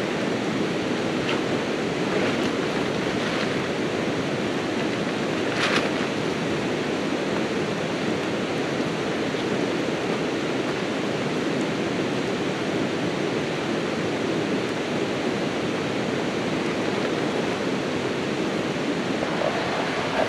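Steady rushing of flowing water from a nearby stream, with a few faint knocks in the first six seconds.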